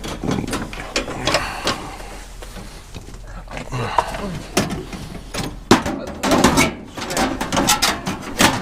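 Scrap metal clattering and knocking as pieces are handled and loaded, with a voice in places.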